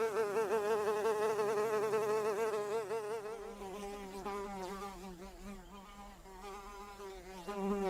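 Housefly buzzing in flight, a steady drone whose pitch wavers up and down. It is louder for the first three seconds, drops back, then swells briefly near the end.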